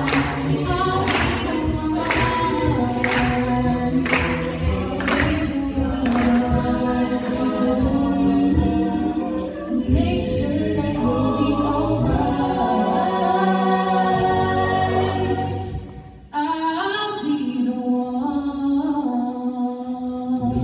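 High school a cappella group singing in many-part harmony, with a sharp beat about once a second for the first six seconds. The voices cut out sharply about sixteen seconds in for a moment, then the singing resumes.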